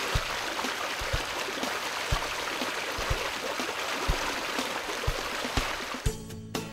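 Shallow stream running over rocks, a steady rush of water with occasional low knocks. About six seconds in, it gives way to guitar music.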